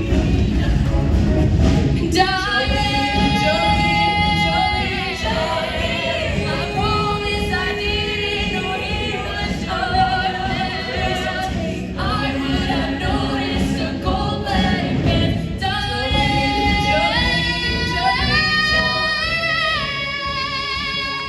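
Show choir singing in harmony over an instrumental backing, with long held notes and a swelling, rising phrase near the end.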